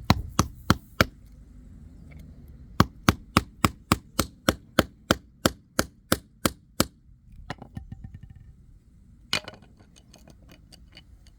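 Hammer blows on a screwdriver's plastic handle as it is being broken off. There are four strikes, then after a short pause a quick run of about fifteen even blows, roughly four a second, followed by a few lighter knocks and clicks.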